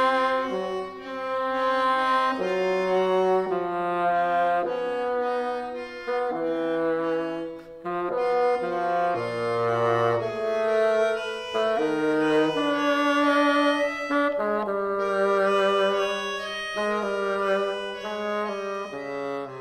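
Bassoon playing a slow melody of held notes over piano accompaniment, the phrase dying away near the end.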